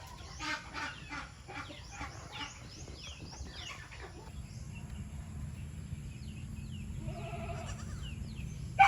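Farm animals calling: a run of short, high, falling chirps in quick succession, then a longer pitched bleat-like call about seven seconds in, and a sharp, louder call at the very end.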